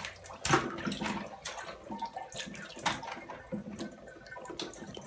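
Shallow bathwater splashing and sloshing in a tub as a toddler's hands stir it and move rubber bath toys, in irregular small splashes with the loudest about half a second in.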